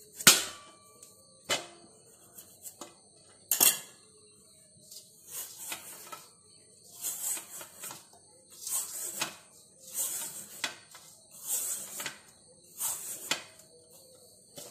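Hand peeler scraping the skin off a ripe yellow cucumber in long strokes, a short rasping scrape about every second and a half. In the first few seconds, a few sharp clinks of the metal tool on a steel plate.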